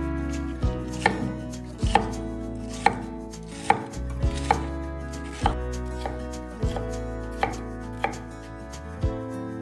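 Chef's knife dicing red bell pepper on a wooden end-grain cutting board: separate sharp knocks of the blade on the board, roughly one a second.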